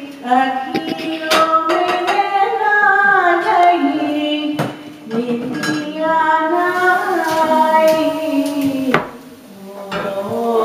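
A woman singing a song in phrases with held, gliding notes, with short breaks between phrases. A few sharp clicks sound over the singing.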